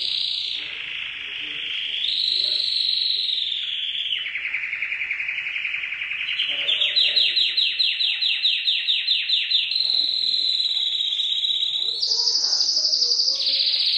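Domestic canary singing a long, unbroken song of rolling trills that step up and down in pitch every couple of seconds, with a run of fast, evenly pulsed notes in the middle.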